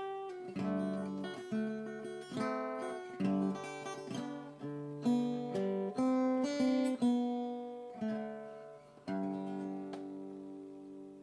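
Background music: an acoustic guitar plucking a slow melody, each note or chord fading away, ending on a chord that rings out.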